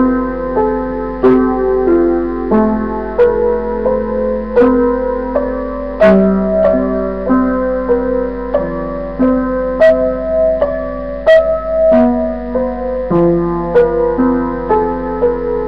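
Upright piano played slowly: sustained notes and chords in the middle register, changing about once a second, with a few sharper accented notes.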